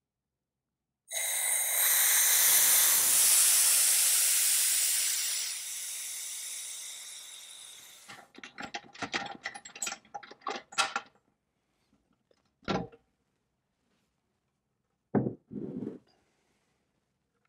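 Compressed air hissing out of a Superclear resin pressure pot's release valve, starting suddenly about a second in, loud at first and dying away over several seconds as the pot empties. It is followed by a run of clicks and knocks and then a few clunks as the pot's lid is handled.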